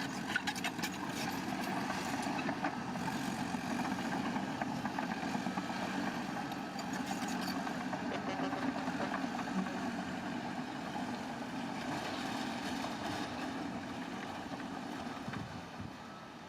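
Heavy construction machine's diesel engine running steadily, with some light rattling. It drops away somewhat near the end.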